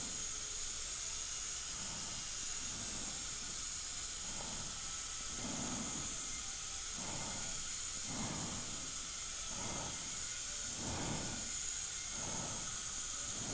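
Steady high-pitched hiss and whine of dental equipment running, the kind made by a high-speed handpiece and suction while slots are cut into a broken implant screw. Soft low pulses recur about every second and a half underneath.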